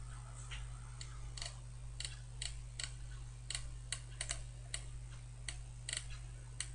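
Light, irregular clicking of computer controls being used to scroll a page, about three clicks a second, over a low steady hum.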